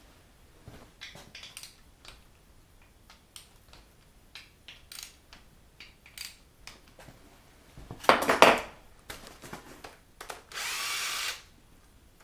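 Small ticks and clinks of tools on the engine, a loud clatter about eight seconds in, then a cordless drill-driver spinning briefly near the end, backing out the cam retainer plate bolts on the LS V8.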